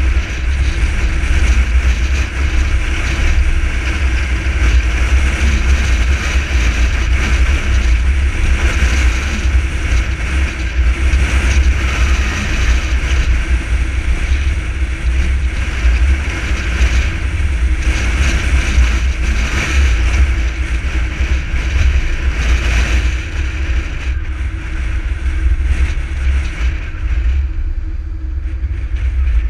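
Steady road and engine noise of a moving car, with a heavy, gusting wind rumble on the camera microphone. The high hiss thins a little near the end.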